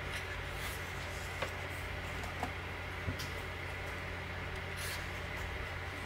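A page of a large hardcover photobook being turned by hand: soft paper rustles and a few light taps over a steady low hum of room noise.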